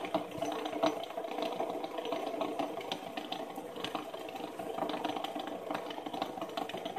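Several fidget spinners spinning together on a tabletop, their bearings giving a steady whirring rattle with scattered light clicks.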